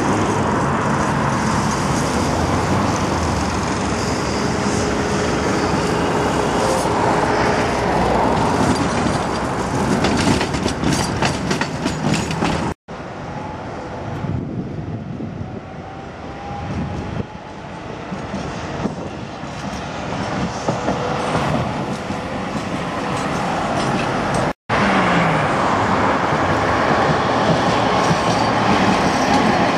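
Tatra trams running past on street track: steady wheel-on-rail rumble with a quick run of clicks over rail joints. The middle stretch is quieter, with a tram further off and road traffic, and a second tram passes close near the end. The sound cuts out sharply twice.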